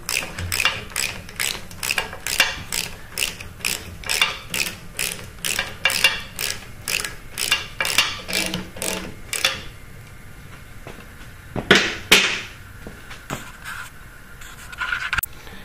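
Socket ratchet clicking in quick, even strokes, about two to three clicks a second, as a 5/8-inch socket runs a bell-housing bolt down tight. The clicking stops about nine seconds in, followed by a few separate knocks.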